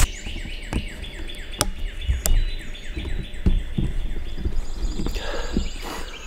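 Songbirds singing at first light: a run of quick, down-slurred chirps repeating several times a second for the first few seconds, over a faint steady high tone. A few sharp clicks and low thumps come from someone moving through the woods.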